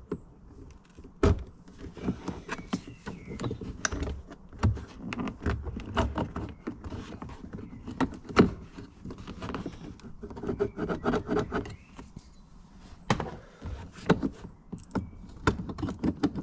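Irregular clicks, knocks and scraping of hands and tools working on a car door's plastic trim, as a trim cover is prised off the door.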